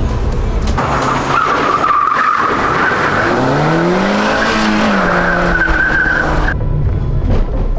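Rally car driven hard on a dirt course: the engine revs up through the middle, then eases back and holds, over a steady high whine and the noise of the tyres on dirt. The sound changes abruptly near the end.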